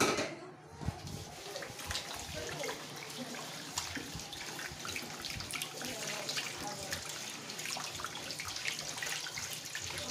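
A hand mixing water into flour in a stainless steel bowl: steady wet stirring and splashing with many small clicks, after a louder burst right at the start.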